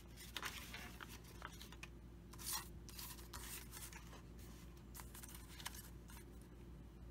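A sheet of paper sliding and rustling on a paper trimmer's base as it is lined up for a cut, with light taps and one louder swish about two and a half seconds in.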